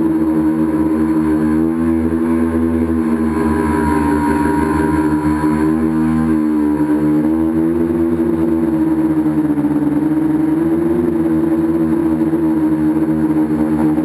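Tricopter's three electric motors and propellers buzzing, heard from the camera on board. The pitch drifts up and down with the throttle as it flies.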